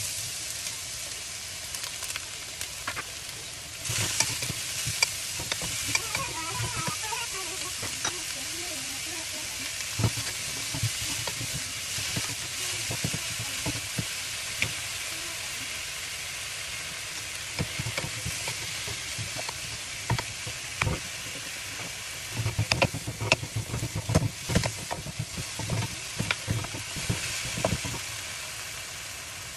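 Strips of zucchini sizzling in hot oil in a wok, the sizzle starting suddenly as they are tipped in. Wooden spatulas scrape and knock against the pan as the zucchini is stir-fried, with the knocks coming thickest near the end.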